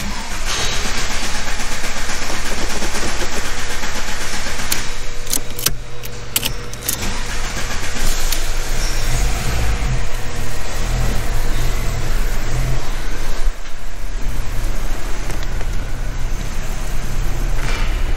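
Volkswagen Mk3's engine starting about half a second in and then running, with a few sharp clicks around five to seven seconds in as the car is set moving slowly.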